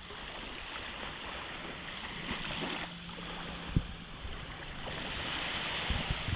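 Waves lapping around a small boat at sea, with wind on the microphone and a steady wash of water. A low knock about four seconds in and another near the end.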